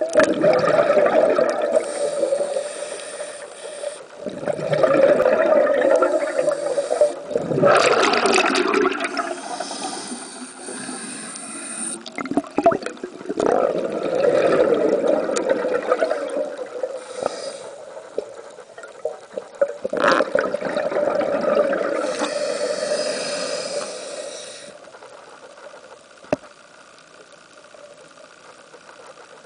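Scuba diver breathing through a regulator underwater: a hiss on each inhale alternates with surges of exhaled bubbles, in cycles a few seconds long. It grows quieter near the end.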